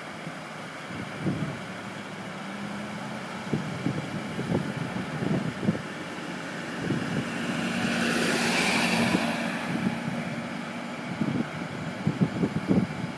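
Mobile crane truck's engine running steadily as it hoists a heavy load, with wind buffeting the microphone. The sound swells louder for a couple of seconds about eight seconds in.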